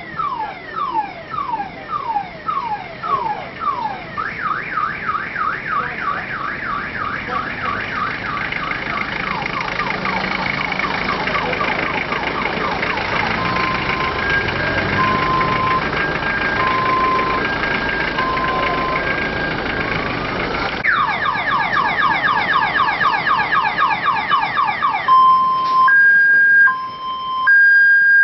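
Electronic siren on a funeral cortege vehicle cycling through its tones. It starts with falling sweeps, a little under two a second, which speed up to about three a second. Around the middle it switches to a two-tone high-low alternation, then to fast falling yelps of about five a second, and near the end back to a slower two-tone high-low pattern.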